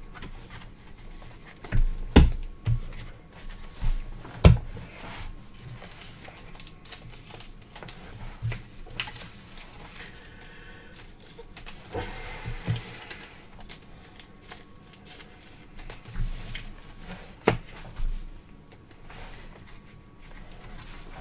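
Prizm baseball cards handled and sorted by hand on a table: scattered light taps and clicks as cards are laid onto piles, a few sharper knocks about two and four seconds in, and a longer stretch of rustling near the middle.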